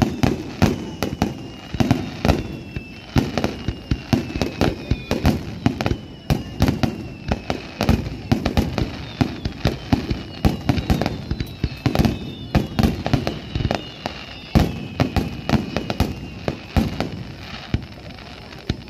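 Fireworks display: a continuous, rapid series of booms and crackles from shells bursting, several a second. Thin high whistles that fall in pitch run through it.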